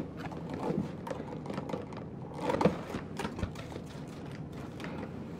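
Scattered light clicks, taps and rustles of things being handled at a kitchen counter, with a louder knock a bit over two and a half seconds in.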